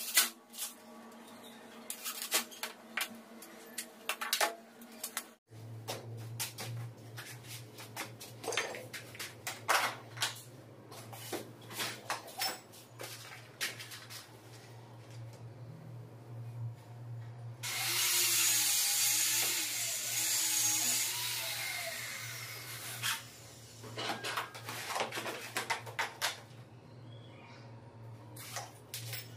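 Cordless drill-driver driving a screw through a metal fitting plate into a plywood door panel: it runs for about five seconds starting about 18 seconds in, its pitch wavering as the load changes. Around it, scattered sharp clicks and knocks of metal plates, screws and tools being handled on the wood.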